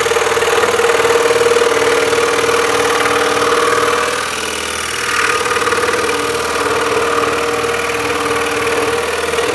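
Axminster Trade scroll saw running, its reciprocating blade cutting through a thick wooden block with a steady buzz. The sound dips briefly about four seconds in, then picks up again.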